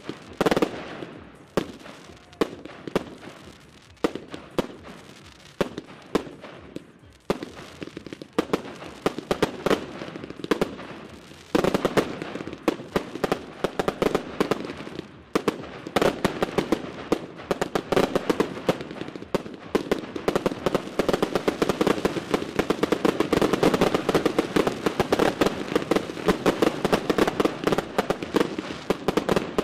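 Aerial fireworks shooting and bursting, with crackling stars. Separate bangs at first, then from about eleven seconds in a dense, rapid volley of bangs and crackle that goes on without a break.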